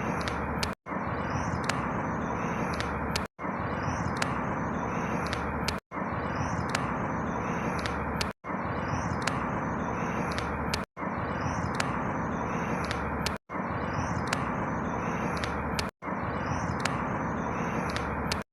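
A few short, high bird chirps over a steady background hiss and low rumble, in a clip about two and a half seconds long that repeats identically, with a brief dropout to silence at each loop point.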